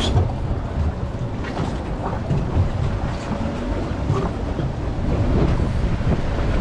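Wind buffeting the microphone aboard a boat on choppy open water, with the sound of waves underneath.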